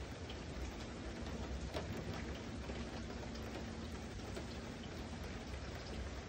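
Rain falling steadily, with scattered drops ticking close by.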